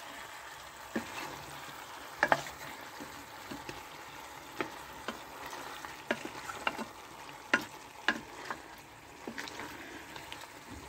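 Pieces of free-range chicken sizzling as they fry in a pan, with a spatula clicking and scraping against the pan now and then as the pieces are stirred.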